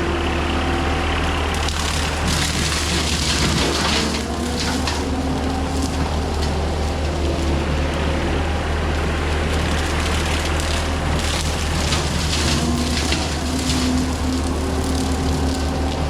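John Deere 326E skid steer's diesel engine running with a hydraulic brush cutter: a steady low drone with whining tones that shift in pitch. Bursts of hiss come a couple of seconds in and again about eleven seconds in.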